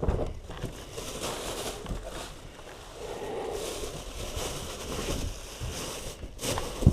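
Heavy breathing close to the microphone, with rustling and handling noise from packing, and a sharp knock near the end.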